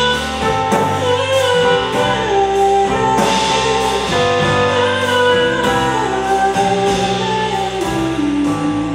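Live band of piano, electric bass and drums playing a slow song, with a female voice singing long held notes over it; the melody steps downward in the second half.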